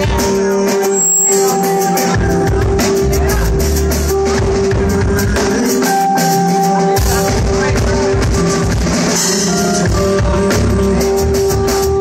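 Live band music: drum kit and keyboards with a woman singing at the microphone, a steady held note running through the mix.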